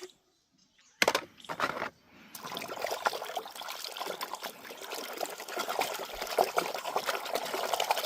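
Water pouring and splashing: two short spurts about a second in, then a steady stream.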